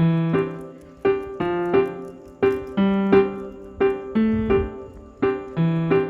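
Background music: a gentle solo piano playing slow, separate notes that ring and fade, in a repeating pattern.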